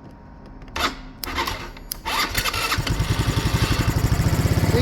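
Scooter engine cranked by its electric starter and catching about two seconds in, then running with a rapid, even putter. It starts on the button now that the rotted-off starter cable has been repaired.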